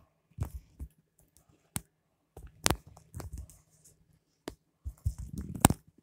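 Handling noise: irregular clicks, knocks and rubbing of a phone being moved about in the hand, the loudest knock near the end, over a faint steady low hum.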